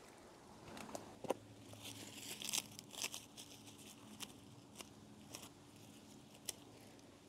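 Dry, crisp hosta leaves crackling and tearing as they are pulled and cut out of the plant by hand, with scattered sharp clicks and a denser flurry about two to three seconds in.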